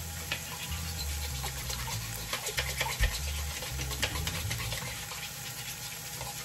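A fork stirring eggs, making a quick, irregular run of scrapes and clicks against the dish.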